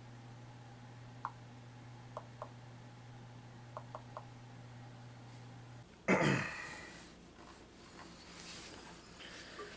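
A few faint, short ticks as keys are tapped on a laptop's touchscreen on-screen keyboard, then about six seconds in a man clears his throat, the loudest sound here.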